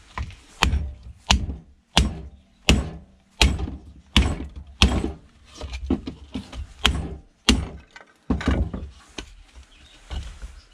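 Club hammer striking a strimmer's green plastic motor housing again and again, about a dozen heavy blows roughly one every three-quarters of a second, smashing the casing open to free the motor because its rusted screws won't turn.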